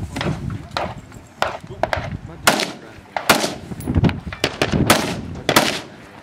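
Rifle fired in a rapid string of about a dozen shots at an uneven pace, roughly two a second, each shot followed by a short ringing tail.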